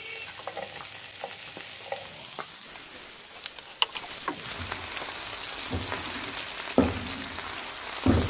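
Chopped onion sizzling in hot cooking oil in a nonstick pan, stirred with a wooden spatula, with small scraping clicks and a few louder knocks in the second half.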